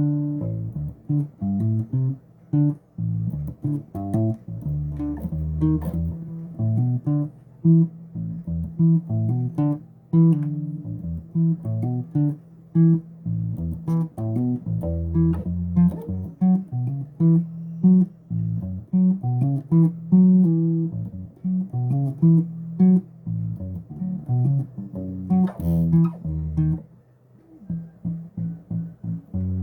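Bass guitar played solo, a continuous line of plucked notes low in the register, with a brief pause near the end.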